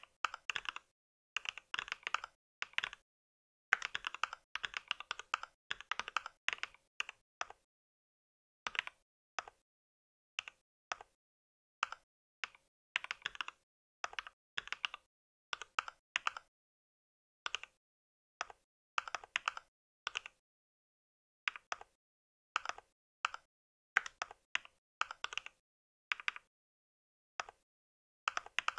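Typing on a mechanical keyboard: bursts of rapid keystrokes with short pauses between them.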